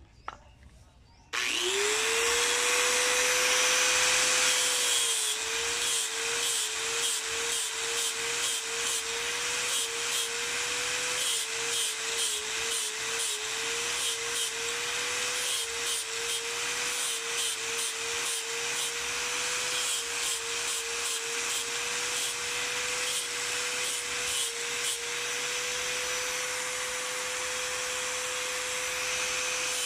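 Electric angle grinder switched on about a second in, spinning up to a steady whine, then grinding water buffalo horn with an abrasive disc: the motor's pitch dips and wavers again and again as the disc is pressed against the horn, with a rough scratching hiss of abrasion.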